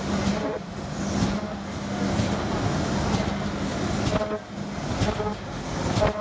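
Plastic slider zipper bag making machine running: a steady mechanical din with a regular stroke about once a second.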